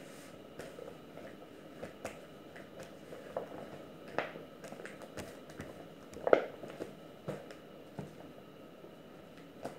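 Hands kneading soft, sticky pizza dough on a plastic sheet: irregular slaps, squelches and taps as the dough is pulled up and pressed down, the loudest slap about six seconds in.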